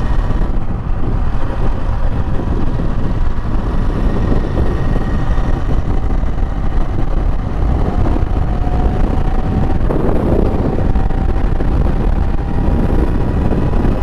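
Royal Enfield Interceptor 650's parallel-twin engine running steadily at cruising speed, mixed with loud wind rushing over the microphone.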